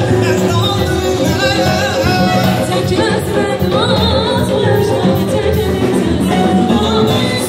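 Live amplified band music: a man and a woman take turns singing an ornamented melody into microphones, backed by clarinet, button accordion, synthesizer and drum kit.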